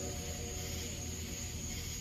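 Steady background noise: a low hum and a hiss, with a thin, steady high-pitched tone running through it.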